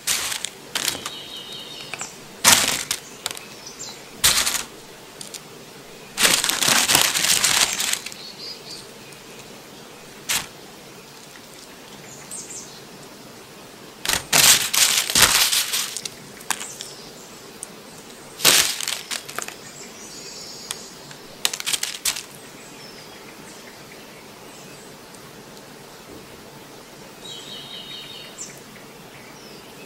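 Crisp shrimp tempura crackling and rustling as it is handled and set onto rice in a wooden bento box. It comes in short bursts, with two longer crunchy stretches. Small birds chirp faintly in the background.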